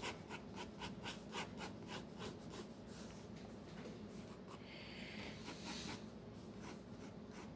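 Pencil strokes scratching softly on sketchbook paper, short quick strokes about four a second. A brief soft hiss comes about five seconds in.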